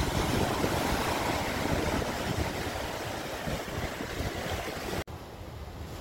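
Small waves breaking and washing up a sandy beach: a steady hiss of surf, with wind rumbling on the microphone. The sound drops off abruptly about five seconds in and goes on more quietly.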